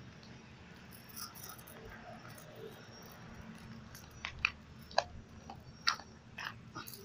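Footsteps on rough ground: a few sharp, irregularly spaced steps or scuffs in the second half, over a faint low hum.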